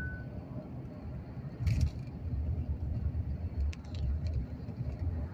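Steady low rumble of road and engine noise inside a moving car, with one sharp knock about a second and a half in and a few faint clicks near four seconds.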